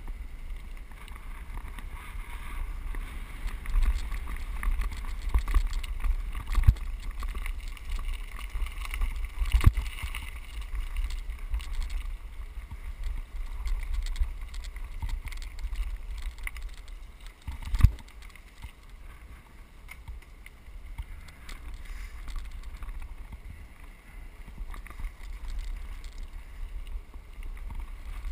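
Mountain bike rolling along a loose gravel track: tyres crunching over stones and the bike rattling, under a steady low rumble of wind on the microphone. A few sharp knocks come from bumps, the loudest about ten and eighteen seconds in.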